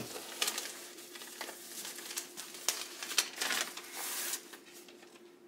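Paper and plastic packaging rustling and crinkling as a folded paper insert is opened and a small boxed device is slid out of its wrapping, with scattered light taps and a denser spell of rustling about four seconds in.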